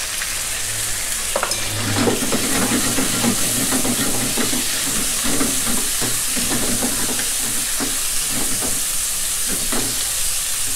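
Chicken pieces sizzling steadily in hot lard with minced garlic in a nonstick wok, while a wooden spatula stirs them with irregular scraping knocks against the pan.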